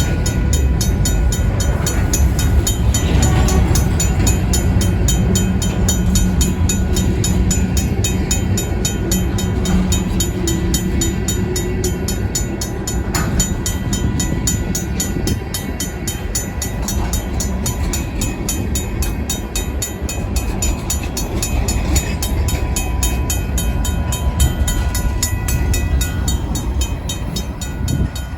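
Union Pacific diesel locomotives and freight cars rumbling slowly over a grade crossing while the crossing's RACO mechanical bell rings in a fast, steady beat.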